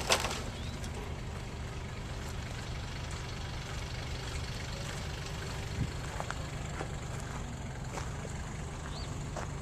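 A steady low engine hum, like a vehicle idling, with a sharp knock right at the start and a few light clicks.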